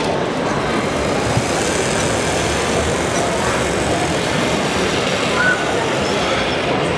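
Steady din of RC construction machines running in a large hall, with a murmur of voices underneath.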